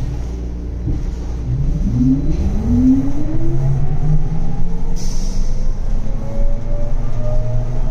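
New Flyer XT60 trolleybus's electric traction drive heard from the rear seats as the bus pulls away: a whine of several tones that starts low about a second and a half in and rises steadily as the bus picks up speed, over a steady low rumble. A short hiss comes about five seconds in.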